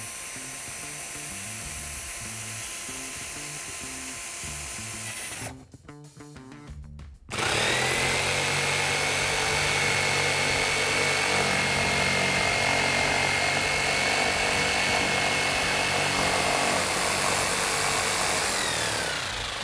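An electric drill running steadily as it bores a starter hole through an OSB board for about five seconds. After a short pause, an electric jigsaw starts and cuts steadily through the OSB with a high whine, winding down near the end.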